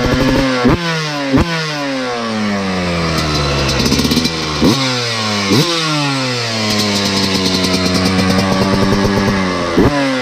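Yamaha 125cc two-stroke motorcycle engine being revved hard on the spot through its expansion chamber and silencer. It starts with sharp throttle blips a second or so apart, then the revs sink slowly, hold fairly steady for a few seconds, and more quick blips come near the end.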